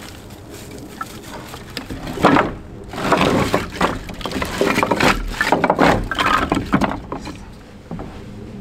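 Split firewood pieces tipped out of a mesh bag onto a wooden deck, knocking and clattering against each other and the boards. There is one loud knock about two seconds in, then a run of clattering for about four seconds.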